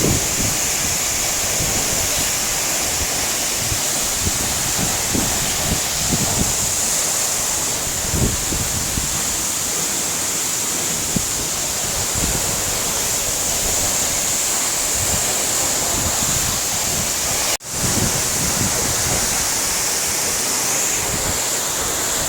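Steady roar of a waterfall's falling water, with wind rumbling on the microphone. The sound cuts out for a split second late on.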